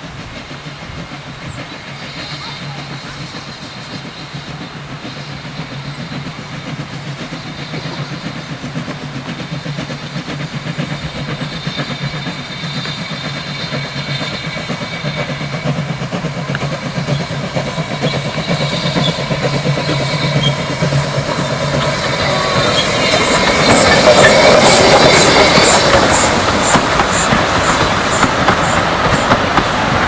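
A steam train, a small steam locomotive hauling passenger coaches, approaching and passing, growing steadily louder and loudest about three-quarters of the way through. Near the end the coaches roll by with a regular clickety-clack of wheels over rail joints, a few clicks a second.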